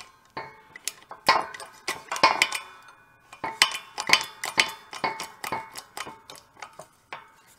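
Irregular metallic clinks and taps, several with a brief ring, as a rebar punch is nudged into position on a steel plate resting on loose steel press blocks in a shop press.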